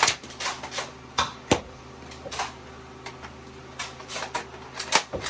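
Irregular plastic clicks and clacks of a Nerf blaster being handled as a part is tried on it, about a dozen sharp knocks.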